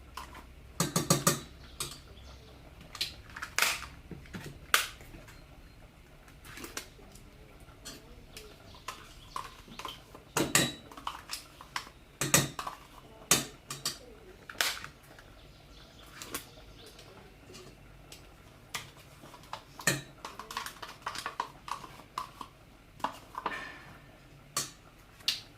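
A spoon clinking and scraping against yogurt pots and a bowl as yogurt is scooped out: irregular sharp taps, some in quick little runs.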